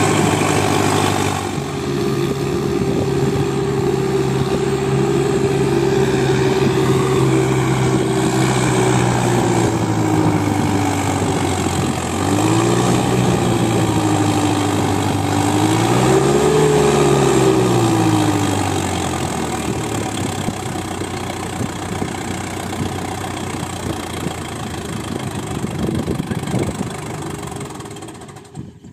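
Preet 6049 60 HP tractor's diesel engine running steadily, then revved up and down twice, then settling back to a lower, fading run near the end.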